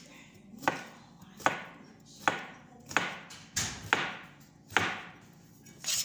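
Kitchen knife chopping cucumber for a salad: about seven or eight sharp chops, a little under a second apart.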